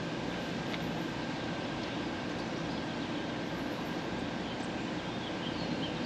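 Steady, unbroken low mechanical drone, engine-like, with a few faint high chirps scattered through it.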